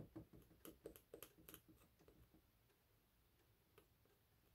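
Faint light ticks and scratches of a craft knife blade picking threads out of a lace edge against a cutting mat, fraying it: a quick run of them in the first couple of seconds, then near silence with one more tick near the end.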